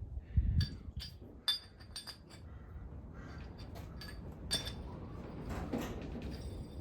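Metal tools and parts clinking against each other as they are handled, in a quick run of sharp ringing clinks near the start and a few more later, with a dull thump about half a second in.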